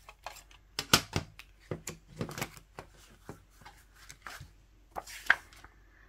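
Handling of an open plastic CD jewel case and its paper booklet: a run of sharp plastic clicks and taps, loudest about a second in and again near the end, with paper rustling as the booklet's pages are turned.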